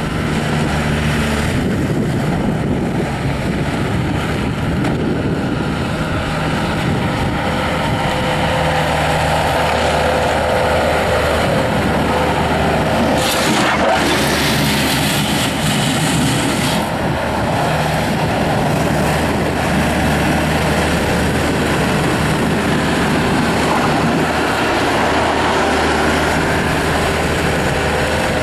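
Bobcat S250 skid steer's Kubota V3300 four-cylinder turbo diesel running steadily at working speed while the machine is driven and its hydraulics worked, the engine note shifting slightly with load. A short noisy surge comes about halfway through.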